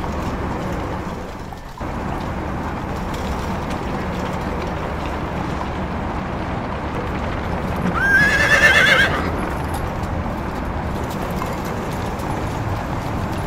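A horse whinnying once, about a second long, a little past the middle, over a steady bed of street noise with horses' hooves clopping.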